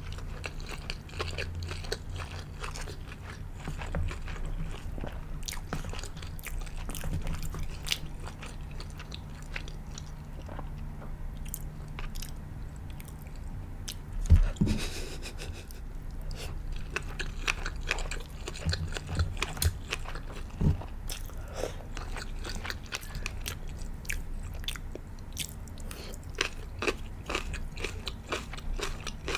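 Close-miked chewing and biting of sushi and sashimi, with many small wet clicks and crunches throughout. There is one loud thump about halfway through.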